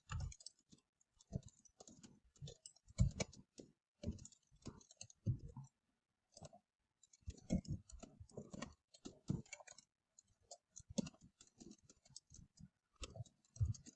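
Irregular clicking at a computer keyboard and mouse: short clusters of clicks with pauses between them.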